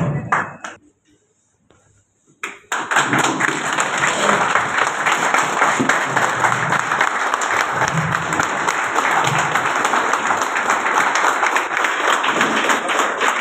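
Recorded music cuts off in the first second, followed by about two seconds of near silence. Then a group of people starts clapping steadily and keeps on, with voices talking over it.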